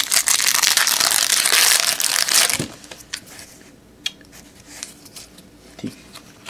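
Plastic foil trading-card pack wrapper crinkling loudly for about two and a half seconds as it is handled, then quieter, with a few faint clicks.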